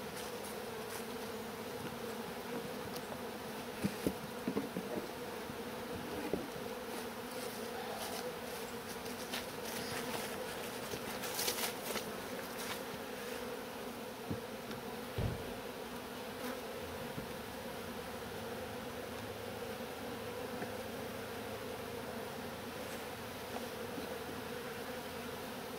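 Steady hum of many honeybees flying around an opened hive, with a few faint knocks.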